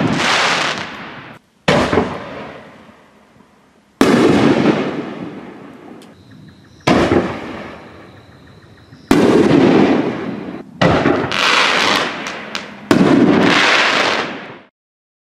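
Reloadable 5- and 6-inch canister aerial shells fired from mortar tubes: about six loud booms of launches and bursts, a couple of seconds apart, each trailing off in a long rolling echo, with a few quick sharp cracks between the later ones. The sound stops abruptly just before the end.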